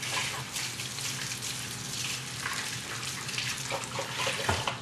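Pistachio-crusted chicken breast sizzling and crackling in hot oil in a nonstick frying pan, just after being laid in.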